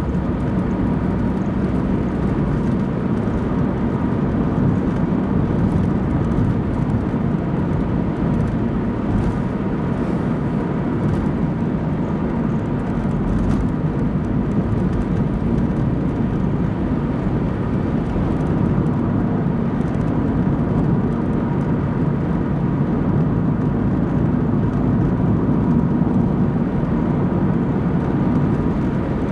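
Car driving at a steady cruising speed: an even drone of engine and tyres on the road, with a faint steady whine above it.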